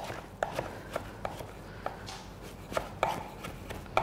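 Chef's knife chopping cooked berza greens on a wooden cutting board: irregular knocks of the blade against the board, a couple a second.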